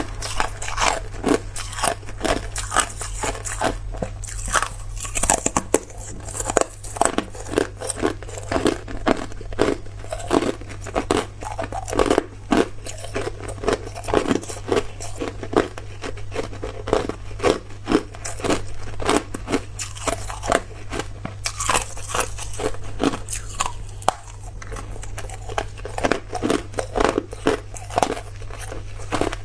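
A person biting and chewing hard clear ice close to the microphone: a quick run of sharp crunches, several a second, with a slightly quieter stretch about three-quarters of the way through.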